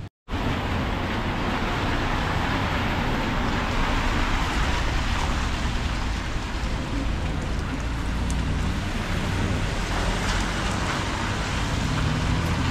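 Steady outdoor street ambience: a continuous wash of noise with a low rumble underneath, cutting in after a brief silence at the very start.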